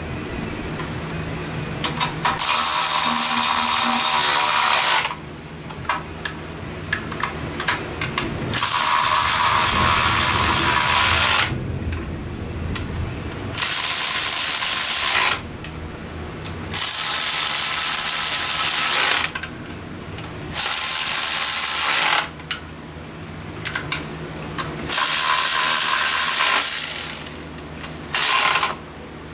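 Power tool with a socket spinning intake manifold bolts down, run in about seven bursts of two to three seconds each with short pauses between.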